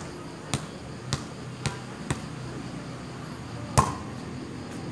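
A volleyball bounced by hand on a concrete court, five even bounces about half a second apart, then one louder slap of a hand striking the ball for a serve near the end.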